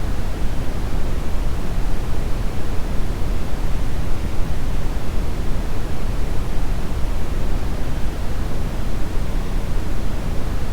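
Synthetic brown noise: a steady, deep rumbling hiss, strongest in the bass, with no changes or events.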